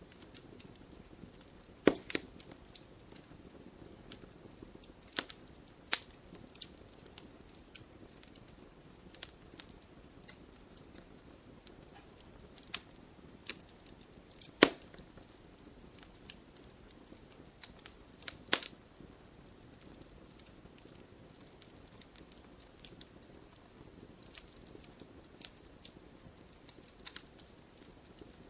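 Wood fire crackling in a fireplace: a soft steady hiss with irregular sharp pops and snaps, a few louder pops standing out.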